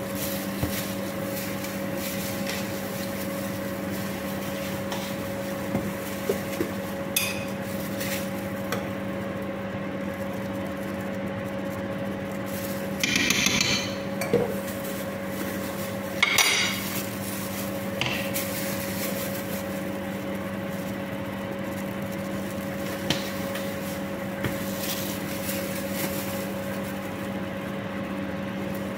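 Cooking utensils knocking and scraping against a cooking pot, with two short rattling bursts near the middle, over a steady hum.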